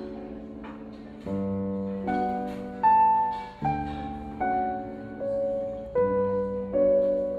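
Background instrumental piano music: a melody over sustained chords that change every second or so.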